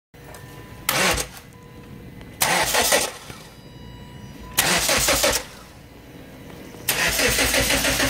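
Nissan Sentra engine cranking on its starter in four separate tries, each a short burst about two seconds apart, the last one the longest, without catching. It is a crank-no-start: the fuel is contaminated with water. A fainter steady hum runs between the tries.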